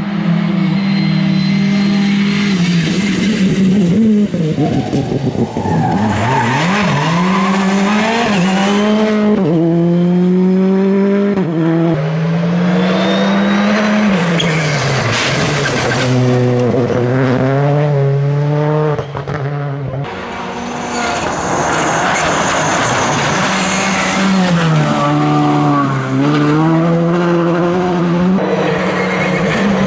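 R5 rally cars' turbocharged four-cylinder engines at full throttle as several cars pass one after another: the engine note climbs, then drops in sudden steps at each quick gear change, over and over. Tyres skid and scrabble on the loose surface in places.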